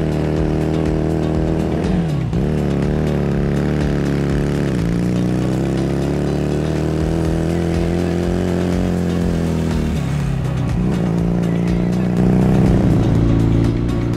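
Small motorcycle engine running under way. Its note dips and climbs back about two seconds in, near five seconds and again about ten seconds in, and it gets louder shortly before the end.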